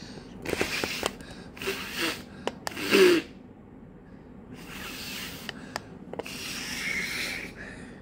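Hands rubbing a small soft plastic color-changing toy to warm it: a series of soft hissing strokes, with a louder one about three seconds in.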